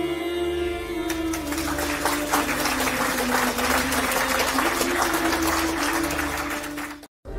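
Crowd applause starting about a second in over steady background music, both cutting off abruptly near the end.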